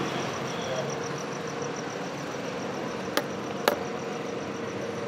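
Steady noise of car traffic and running engines, with a faint high pulsing tone of about five pulses a second. Two sharp clicks come about half a second apart a little after three seconds in.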